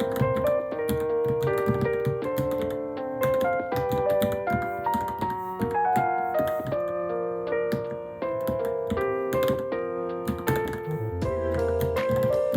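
Typing on a Varmilo Minilo mechanical keyboard, a steady stream of keystroke clicks, over background piano music.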